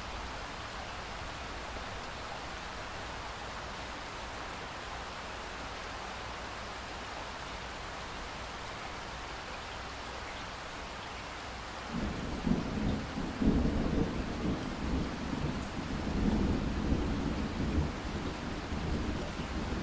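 Steady rain hiss; about twelve seconds in, a long rolling thunder rumble begins and keeps rumbling louder and softer under the rain.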